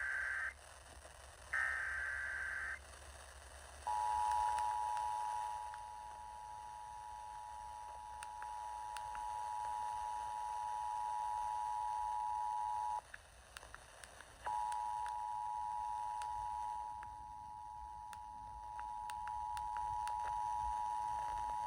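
Emergency Alert System tones. First come two roughly one-second screeching bursts of the digital SAME alert header. Then the two-tone attention signal plays as a steady, two-pitched electronic tone for about nine seconds, stops for about a second and a half, and sounds again for about eight seconds, announcing a weather warning to follow.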